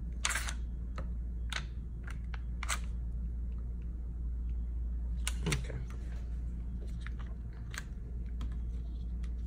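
Fingernails picking and peeling small pieces of cut heat-transfer vinyl off its backing on a light pad: scattered sharp clicks and crackles, a few seconds apart, over a steady low hum.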